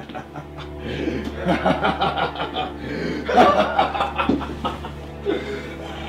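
A man laughing heartily in repeated bursts of chuckling, building about a second in, loudest around the middle and then trailing off, over a low steady drone.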